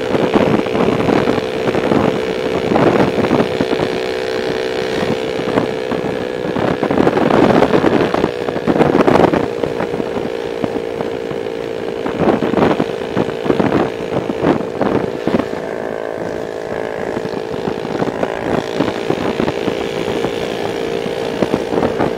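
Motorcycle with a loud exhaust cruising at steady revs, its engine note holding one pitch. Wind noise gusts on the microphone now and then.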